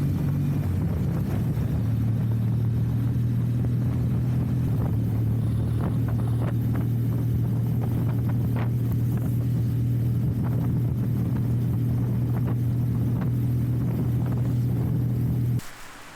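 A vehicle engine running at a steady speed: an even, low drone that drops slightly in pitch about a second in and cuts off abruptly just before the end.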